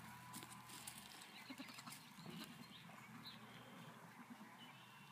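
Faint hoof scuffs and hay rustling from Nigerian Dwarf goat kids moving about on top of a hay bale.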